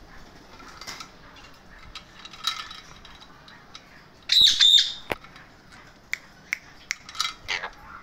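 Alexandrine parakeets calling: a loud, harsh squawk in two quick bursts about four seconds in, then a scatter of short sharp clicks and brief chirps, with a couple of softer calls before it.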